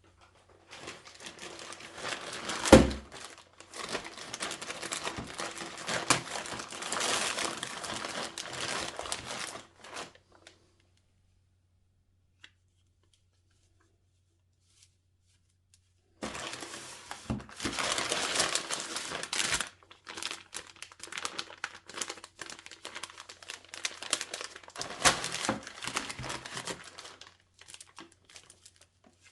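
Packaging being unwrapped by hand, with wrapping crinkling and tearing. There is one sharp thump about three seconds in, a pause of several seconds in the middle, then more crinkling and tearing.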